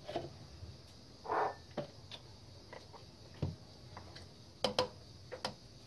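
Scattered light clicks and knocks of a hand blender's plastic chopper bowl and motor unit being handled, with a few sharper clicks close together near the end. A short, soft rush of noise comes about a second and a half in.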